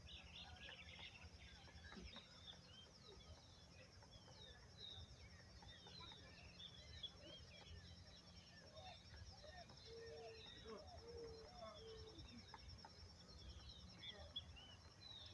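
Many birds chirping and twittering over a steady, high, pulsing insect trill, with three short low notes about ten seconds in.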